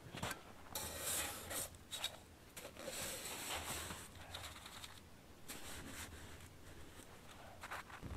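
Faint, irregular crunching and scraping of snow, in short uneven strokes.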